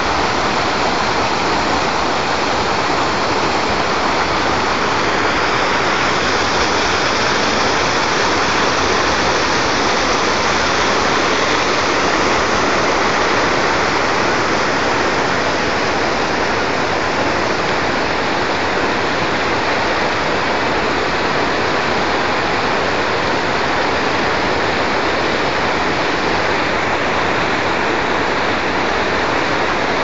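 Water of a small mountain waterfall and its cascading stream rushing and splashing over rocks, a loud, steady rush that does not let up.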